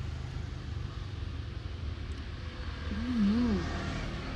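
Steady low background rumble, with a short wavering pitched sound that rises and falls twice about three seconds in.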